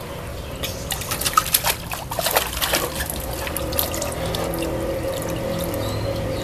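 Long-tailed macaque splashing its hands and head in a plastic tub of water: a quick run of sharp splashes in the first half, then a steadier trickling and dripping of water.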